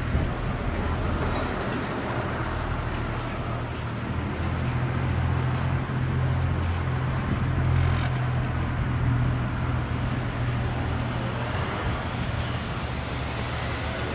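A motor running steadily with a low drone, over a general wash of outdoor traffic noise.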